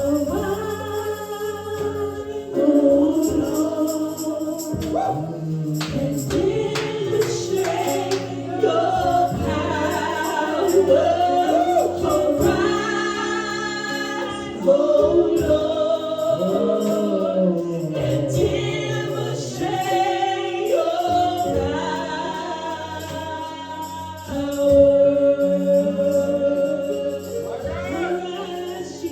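Gospel worship music: voices singing over sustained instrumental backing.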